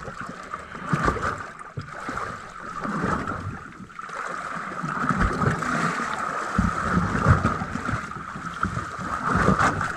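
Water lapping and slapping against a small boat's hull, with scattered low thumps, over a steady hiss of wind and sea.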